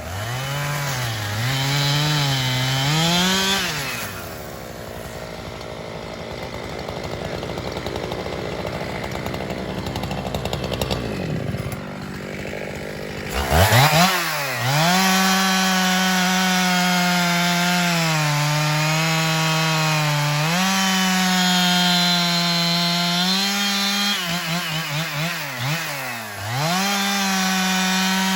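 Petrol two-stroke chainsaws bucking hard gum logs: the engine is held at high revs in the cut, its pitch dipping and recovering as the chain bogs under load. After a quieter stretch in the middle, a saw revs up again about thirteen seconds in and cuts steadily, with several short dips near the end.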